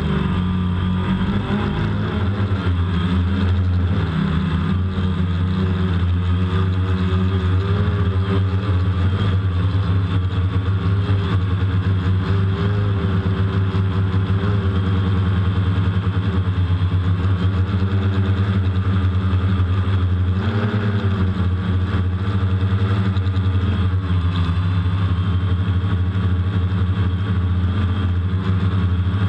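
DJI Phantom quadcopter's motors and propellers humming steadily, heard close up through the camera mounted on the drone, the pitch wavering slightly now and then.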